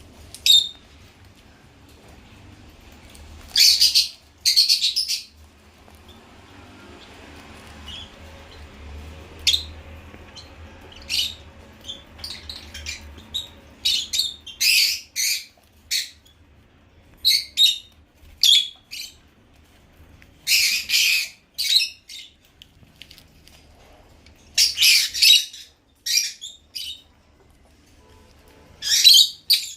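African lovebirds calling with short, shrill squawks and chirps, some single and some in quick runs of several, with pauses of a second or more between them.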